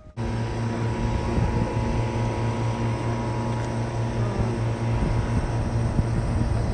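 Hot-air balloon's propane burner firing: a loud, steady blast with a deep hum that starts suddenly just after the beginning and holds.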